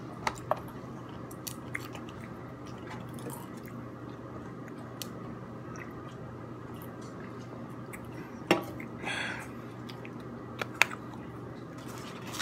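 A man's soft eating and drinking sounds as he sips from an aluminium can: faint chewing and mouth clicks, then a sharp tap about eight and a half seconds in followed by a short breathy sound, all over a steady low hum.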